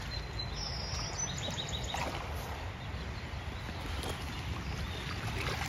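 Shallow creek water running steadily over a rocky bed, with a steady low rumble on the microphone.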